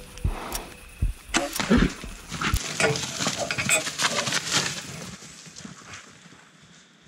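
Black bears bolting from a bait site through dry leaf litter and brush: a few heavy knocks and thumps, then a couple of seconds of dense crackling and snapping that fades away as they go.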